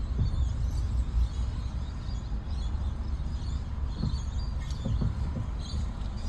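Low steady rumble heard inside a stationary car's cabin, with faint, scattered high chirps.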